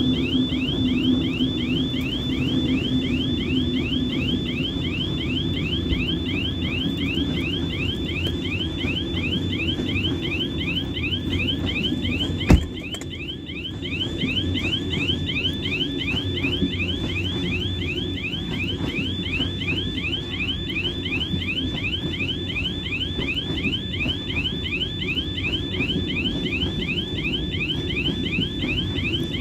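Level-crossing warning signal sounding a rapidly repeating rising electronic tone over the low rumble of a freight train passing over the crossing, hauled by a C30-M diesel locomotive. One sharp knock comes about halfway through.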